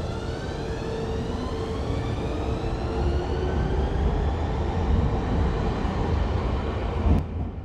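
Nankai electric train with its motor whine rising in pitch, several tones climbing together over a low rumble, as the train speeds up. A sharp click comes near the end, and the sound then fades away.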